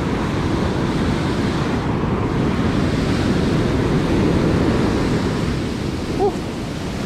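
Ocean surf breaking and washing up a sandy beach in a steady loud rush, with wind buffeting the microphone. A brief short pitched squeak about six seconds in.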